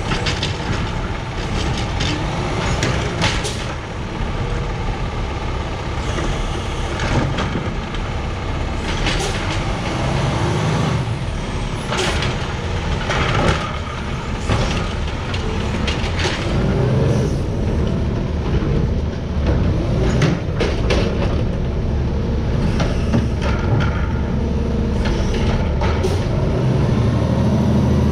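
Peterbilt 520 garbage truck with a McNeilus AutoReach automated side-loader running, its hydraulic arm dumping a cart with scattered knocks and clatter and a hiss of air brakes. The engine revs and gets louder near the end as the truck pulls forward.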